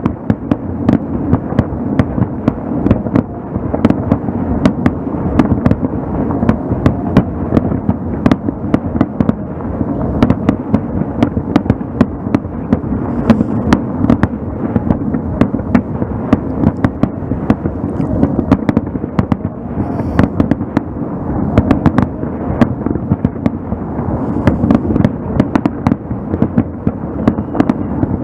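Fireworks display heard across open water: a continuous low rumble of aerial shell bursts, with many sharp bangs and crackles, several each second.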